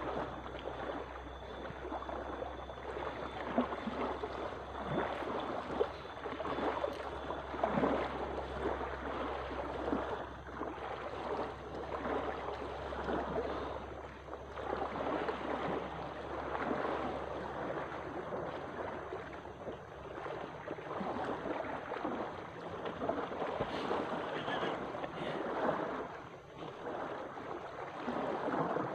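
Small waves lapping and washing on a pebbly lakeshore, with wind rumbling on the microphone during the first half.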